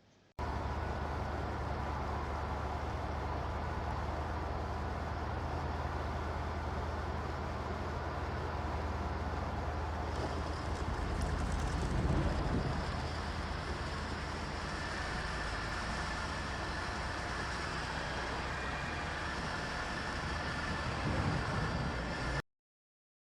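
Playback of an AI-generated sound effect: a steady low, rumbling noise like heavy vehicle or rail traffic. It swells about halfway through and again near the end, and it starts and stops abruptly.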